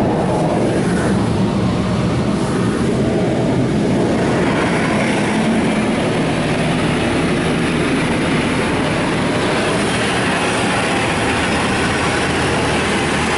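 Touchless car wash high-pressure water jets spraying the car, heard from inside the cabin: a loud, steady rush and hiss of water on the body and glass, as the rocker panel blasters spray the lower sides and wheels. The hiss grows stronger about four seconds in.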